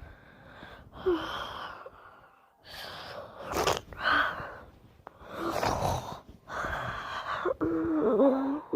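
A person snoring: a run of noisy breaths every second or two, the last one near the end turning into a wavering, voiced whine.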